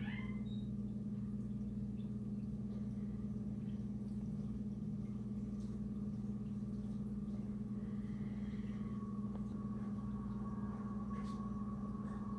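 Steady low electrical hum from reef aquarium equipment, with a faint thin whistle over it in the last few seconds.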